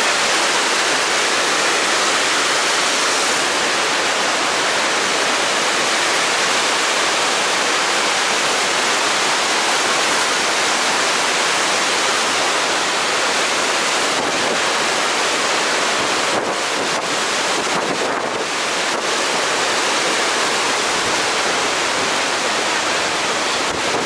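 Loud, steady rush of water from Iguazu Falls and the white-water rapids of the Iguazu River just below the walkway.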